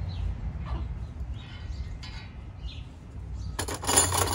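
Birds chirping in short, scattered calls, then near the end a loud clattering rattle of the metal wire trellis pieces being handled and pulled from their cardboard box.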